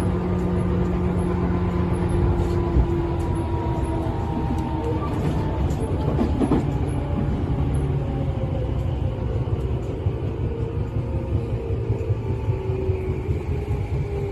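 Tobu 10000 series electric train running between stations: a steady rumble of wheels on rail, with whining tones from the running gear that drift slowly in pitch.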